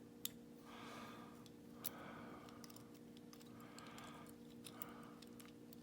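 Faint clicks and light scraping of a lever-lock pick working inside a Legge 5-lever padlock, with two sharper ticks, one about two seconds in. A steady low hum runs underneath.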